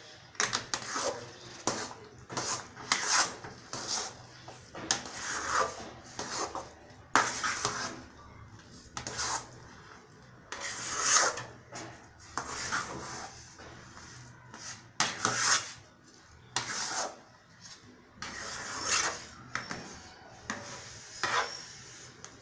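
A metal spatula stirring and scraping thick semolina kesari around a metal kadai, in irregular scrapes about once a second as the pudding cooks down on a low flame.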